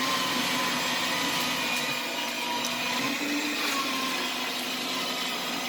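A small motor running steadily under a loud, even airy hiss, with a faint steady hum in it.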